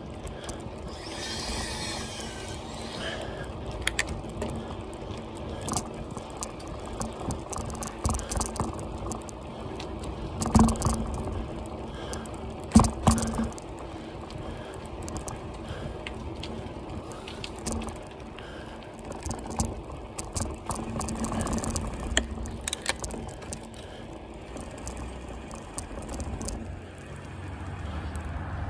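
Bicycle rolling over a rough concrete road, rattling and clicking as it goes, with a couple of louder knocks over bumps.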